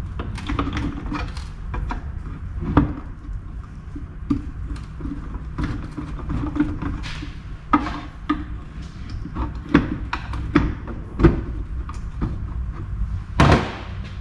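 Halves of an NP241 DLD transfer case being pried and worked apart on a steel bench: irregular metal clicks and knocks, the loudest near the end, over a steady low hum.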